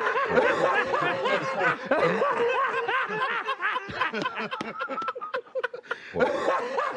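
People laughing hard, a man's loud laugh in quick repeated bursts with others laughing along.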